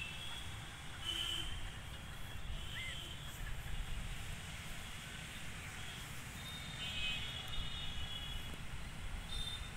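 Outdoor town ambience: a steady low rumble with a few brief high-pitched tones over it, including a short rising-and-falling chirp about three seconds in and a cluster of tones about seven seconds in.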